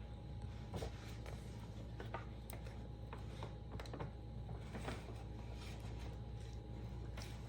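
Irregular small scratching and rubbing sounds, a few short clicks scattered through, over a steady low hum.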